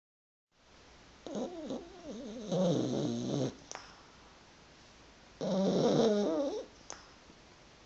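French bulldog snoring in its sleep: two long, wavering snores about four seconds apart, each ending in a short click.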